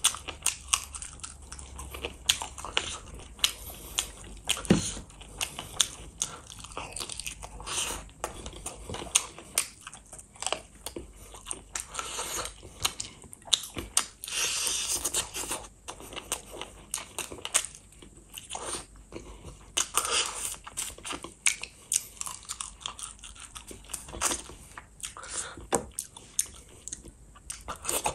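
Close-miked eating of spicy chicken feet and rice by hand: wet chewing and biting, with frequent sharp crunches and mouth clicks in an irregular run.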